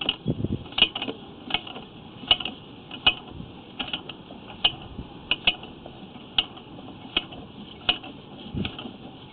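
Sewer inspection camera rig clicking and ticking irregularly, about two clicks a second, as the push cable is worked through the line, with a brief low rumble near the start and again near the end.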